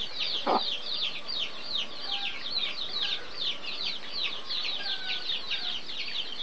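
Small birds chirping nonstop: quick, high chirps that fall in pitch, several a second and overlapping, with one short lower call about half a second in.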